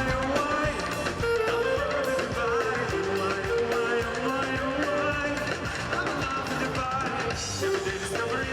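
Background pop music with guitar and a drum beat, and some singing.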